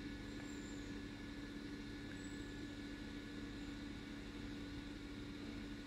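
Faint steady low hum with a light hiss: room tone, with no other events.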